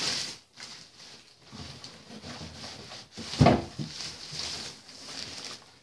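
Plastic wrapping rustling and crinkling as a Segway Mini Pro self-balancing scooter is pulled out of its cardboard box. A short, loud, low sound comes about three and a half seconds in.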